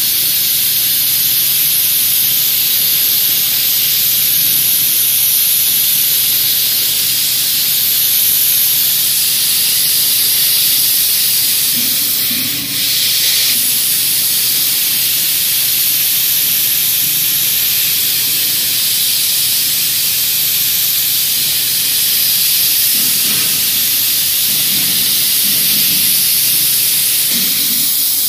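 Laser cutting machine cutting a stainless steel sheet: a loud, steady hiss of assist gas jetting from the cutting head, with a faint low hum beneath. The hiss dips briefly once about midway and cuts off at the end.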